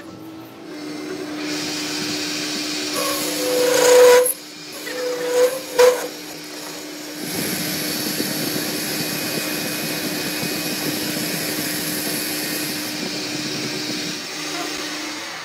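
Metal lathe turning a steel shaft: the tool bit hisses against the spinning workpiece over the machine's steady hum, with two brief loud squeals from the cut about four and six seconds in.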